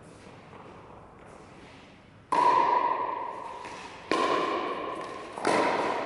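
Pickleball paddles striking the hard plastic ball three times in a rally, each a sharp pock that rings and echoes around a large hall. Before the first hit, about two seconds in, there is only faint background noise.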